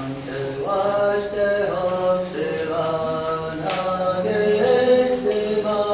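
Men's voices singing a Native American chant in long, held notes, with a lower and a higher voice together and pitches sliding between notes.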